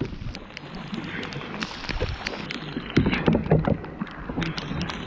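Kayak being paddled: paddle strokes splashing in the water, with frequent sharp knocks of the paddle and gear against the hull.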